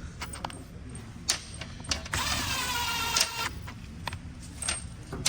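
Handheld electric driver spinning up with a rising whine and running for about a second and a half to drive down a transmission valve body bolt, with light metallic clicks of tools and bolts around it.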